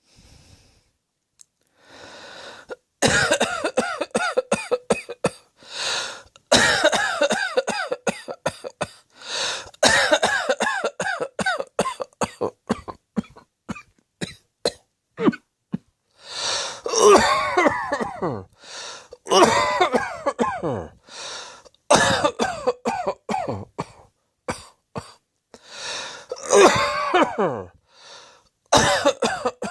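A person coughing over and over in fits, each a run of several quick coughs with short pauses for breath between the fits; the coughing starts about three seconds in.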